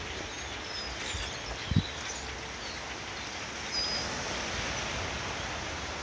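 A large flock of migrating birds in the trees: a steady hiss of many calls with scattered short, high chirps, growing a little louder about four seconds in. A single soft thump about two seconds in.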